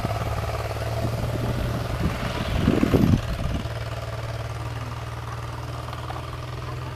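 Wind buffeting the microphone in low gusts, strongest about three seconds in and then easing, over a steady low hum from a distant engine.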